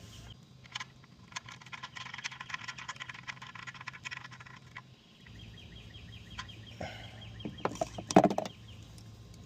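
Ratchet clicking rapidly while the starter bolts are undone, then a steady hum with faster ticking and a sharp clunk of metal parts about eight seconds in.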